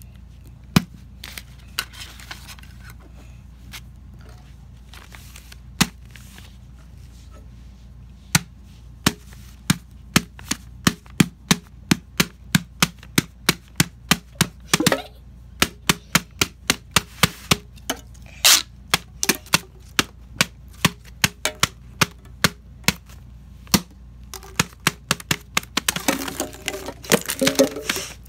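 A run of sharp clicks or taps, a few scattered at first, then from about eight seconds a steady run of roughly two a second, growing denser near the end.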